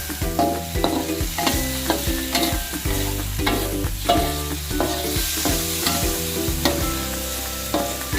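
Eggplant and chilli sambal sizzling in a frying pan while being stirred, the spatula scraping and tapping against the pan many times. Background music with a steady beat plays along.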